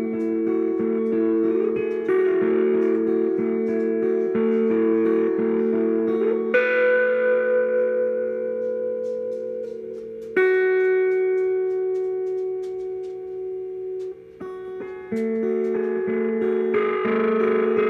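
Electric guitar (Epiphone Les Paul) played through a Sovtek-made Electro-Harmonix Big Muff Pi fuzz pedal into an Ampeg G212 amp: thick, sustained fuzzed chords. A chord struck about six seconds in and another about ten seconds in are left to ring out and fade, then steady chord playing resumes near the end.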